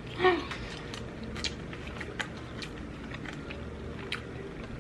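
A person chewing food close to the microphone, with scattered sharp mouth clicks and smacks over a quiet background, after a brief vocal sound at the start.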